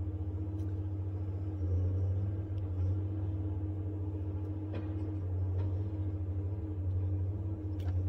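Steady low hum of a vehicle engine idling, heard from inside the cab. A few faint ticks and scrapes come from a Benchmade Freek pocket knife working on insulated wire.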